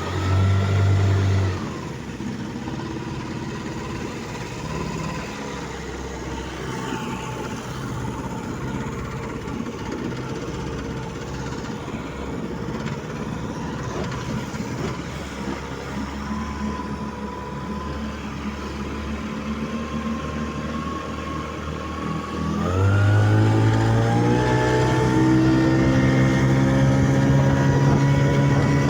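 Vikhr two-stroke outboard motor running on test: a short burst of throttle at the start, then steady running at lower speed, then the throttle is opened about 23 seconds in and the engine rises in pitch and gets louder, holding there.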